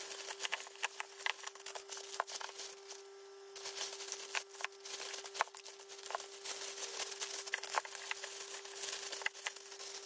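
Thin plastic bags rustling and crinkling as food packs are handled and bagged, with many sharp crackles. A steady hum runs underneath.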